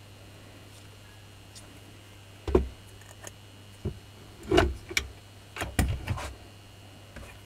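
Parts of a disassembled Makita hammer drill being handled and set down on a workbench: a few sharp knocks and clicks of plastic and metal, the loudest about two and a half and four and a half seconds in.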